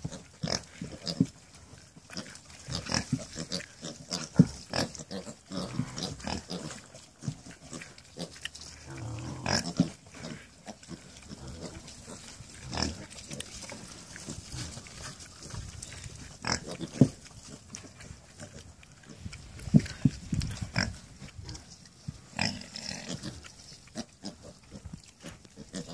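Pot-bellied pigs and six-week-old piglets grunting, short grunts coming at irregular intervals, a few of them louder than the rest.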